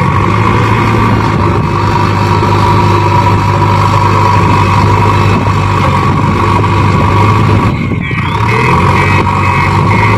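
JCB backhoe loader's diesel engine running steadily with a constant low drone, dipping briefly about eight seconds in.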